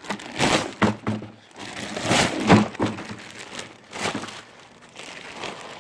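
Plastic packaging wrap crinkling and rustling in a series of short bursts as a rolled rubber truck bed mat is pulled and shaken out of it onto concrete.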